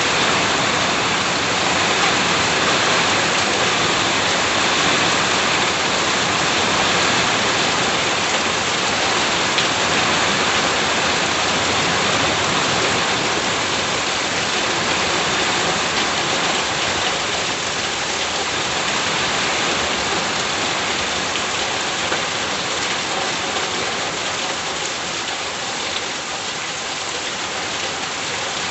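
Steady heavy rain falling and pattering on surfaces around a house, an even hiss without pause.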